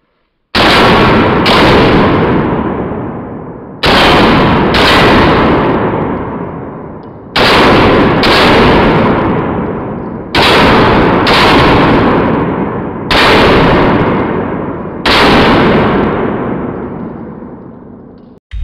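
Semi-automatic pistol fired ten times: four pairs of shots about a second apart, then two single shots. Each shot rings out in a long echo off the concrete walls of the range.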